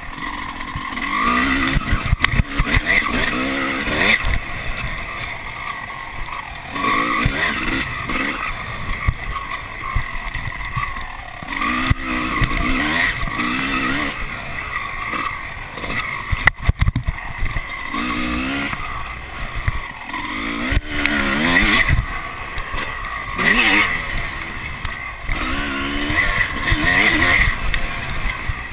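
Off-road motorcycle engine revving up and dropping back again and again as the rider accelerates and shifts, with a few sharp knocks partway through.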